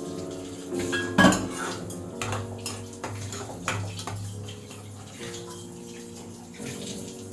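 Dishes and cutlery clinking and clattering, with the loudest clank about a second in, over steady background music.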